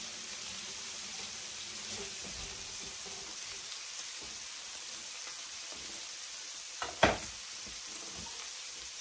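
Filet mignon steaks sizzling steadily in foaming butter in a hot cast iron skillet, with one sharp knock about seven seconds in.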